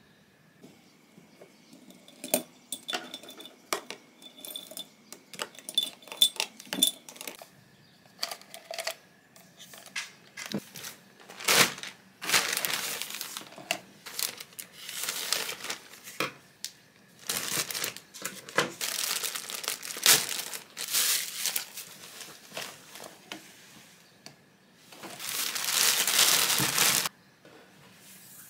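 Pens and markers clicking and clinking against a glass jar and a plastic pencil holder as they are moved from one to the other. Then a plastic mailer bag crinkles and rustles in long stretches as it is opened and handled, the loudest rustle near the end.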